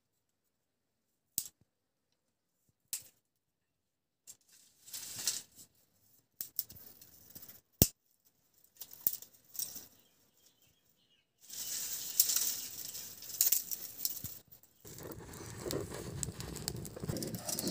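Dry twigs and stalks snapping and rustling as they are broken and pushed into a clay wood-burning stove, with a few single snaps in the first seconds. About two-thirds of the way in this gives way to the dense crackling of the dry kindling catching fire, which grows fuller near the end as the flames build.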